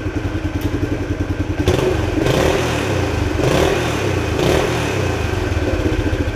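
1976 Honda XL175's single-cylinder four-stroke engine running on a used replacement coil, with a few short throttle blips from about two seconds in. That it runs shows the original ignition coil was bad.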